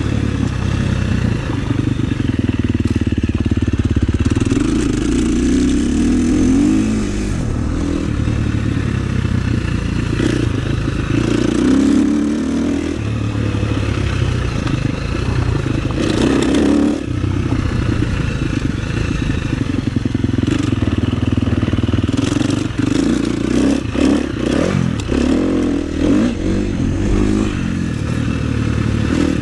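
KTM 350 SX-F motocross bike's single-cylinder four-stroke engine under way, revving up and falling back again and again with the throttle. Short knocks and rattles from the bike over the rough track come in the later part.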